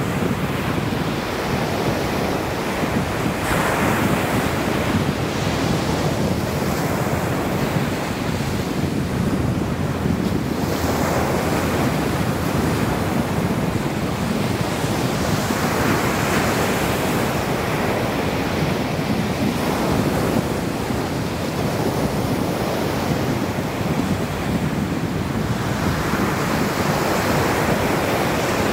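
Ocean surf breaking on a beach, swelling and easing every several seconds, with wind noise on the microphone.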